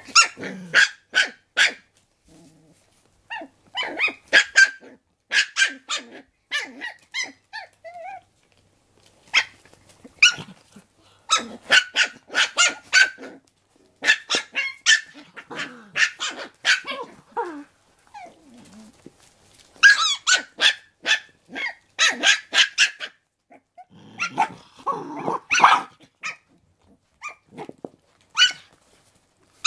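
Shiba Inu puppy barking at its mother in repeated bursts of quick, high-pitched yaps, demanding the dental chew she is gnawing. A lower, rougher stretch of growling comes about 25 seconds in.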